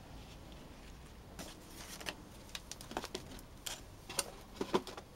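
Small resin orgonite hearts clicking and knocking as they are worked out of a flexible heart-shaped mould over a cardboard box: a scatter of light clicks starting about a second and a half in, closest together and loudest near the end.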